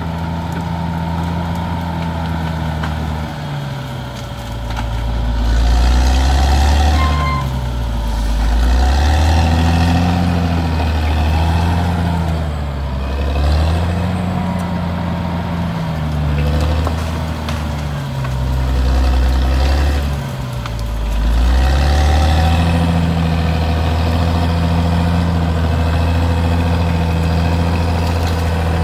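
Caterpillar D6R XL bulldozer's diesel engine working under load, its pitch dipping and climbing back again and again as it lugs and recovers, then running steadily near the end.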